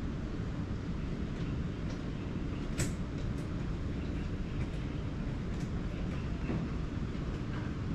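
Domestic cat purring close to the microphone while being stroked: a steady low rumble, with a sharp click a little under three seconds in.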